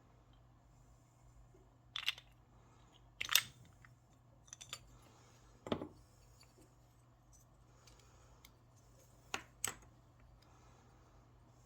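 Small tools and metal parts being handled on a workbench: a handful of separate sharp clicks and light knocks, two of them close together late on, over a faint steady hum.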